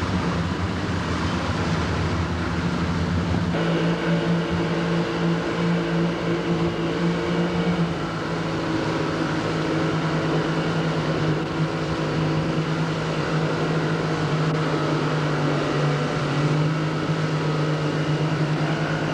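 Tour boat's motor running steadily under way, with a shift in its pitch about three and a half seconds in.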